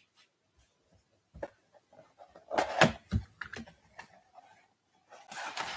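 Cardboard blaster box being handled and opened by hand: light taps and scrapes, a louder rustle about two and a half seconds in followed by a low thump, and more rustling near the end.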